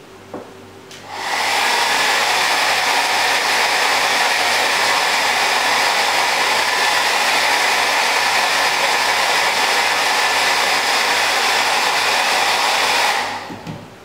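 A click, then a handheld hair dryer starts about a second in and blows with a loud, steady whoosh. It is switched off near the end, and the sound fades out quickly.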